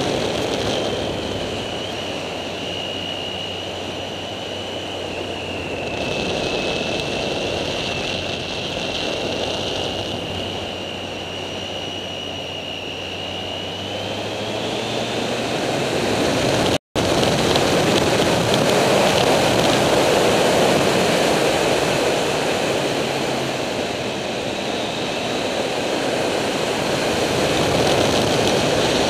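Wind rushing over a bike-mounted microphone on a moving Triumph Street Triple, with its 675 cc three-cylinder engine running underneath. A thin steady whine holds its pitch through the first half, and the sound drops out for an instant about seventeen seconds in.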